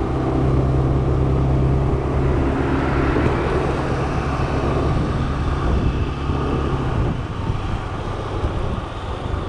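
Motor scooter's small engine running steadily under way, a low hum under wind and road noise. The engine note weakens about seven seconds in.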